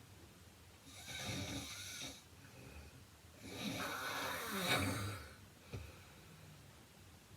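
A heavy-set woman snoring in her sleep: two snores about two and a half seconds apart, the second longer and louder, followed by a short click.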